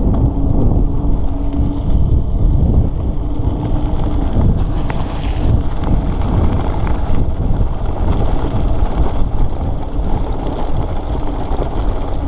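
Wind buffeting the microphone over the rumble of bicycle tyres rolling on a gravel road while riding.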